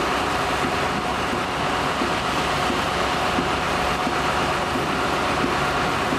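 Engine of a tracked pile-driving rig running steadily at a constant pitch, with a faint steady whine over it and no hammer blows.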